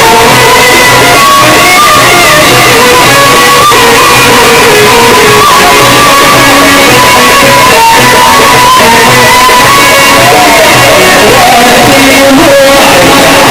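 Live Egyptian Sufi devotional music (inshad), loud and continuous. Tambourines (riq) keep a steady beat under a sustained melodic line, with shouts from the crowd.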